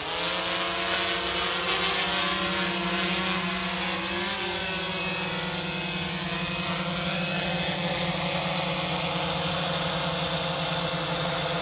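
GoPro Karma quadcopter's propellers and motors running with a steady, even-pitched buzz as it hovers low and sets down, with a brief wobble in pitch about four seconds in.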